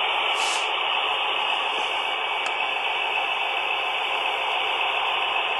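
Steady, even hiss-like running noise of HO-scale F7 model diesel locomotives rolling along the track, with no distinct engine tones.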